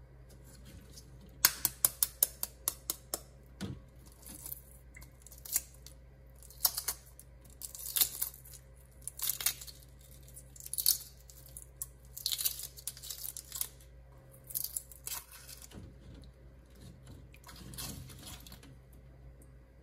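Hard-boiled eggshells cracking and crackling as they are peeled off by hand. About a second and a half in there is a quick run of sharp clicks, followed by crackly bursts every second or so.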